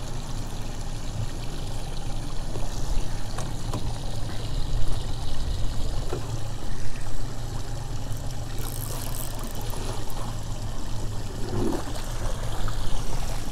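Water sloshing and lapping against the hull of a small boat: a steady, uneven wash with a low rumble underneath.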